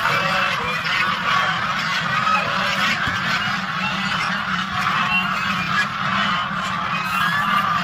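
A flock of domestic geese honking and calling continuously, many overlapping calls at once.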